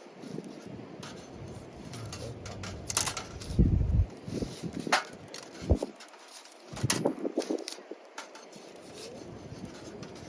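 Firewood being handled and broken for a campfire: a series of sharp wooden knocks and cracks, loudest around three to five seconds in and again about seven seconds in.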